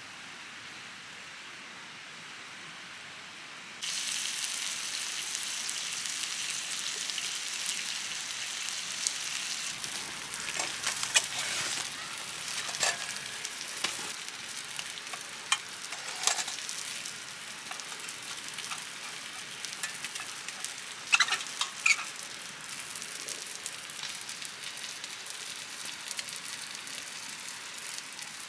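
Chicken legs frying on a hot iron griddle plate. A loud sizzle starts suddenly about four seconds in and carries on, with occasional sharp pops.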